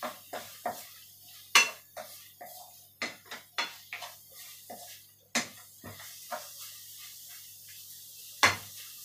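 Wooden spatula knocking and scraping against a metal frying pan while stirring minced chicken chilli paste, in irregular sharp clacks. The loudest come about a second and a half in, about five seconds in and near the end.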